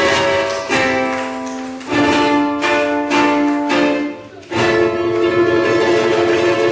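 Solo ukulele played live, strummed chords with a few separate strokes in the middle, a brief dip, then a loud strummed chord about four and a half seconds in that rings on.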